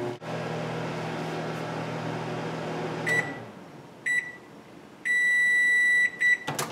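Microwave oven running with a steady hum that stops about three seconds in. It then gives a short beep, another short beep, one long beep of about a second and a last short beep as the heating cycle ends.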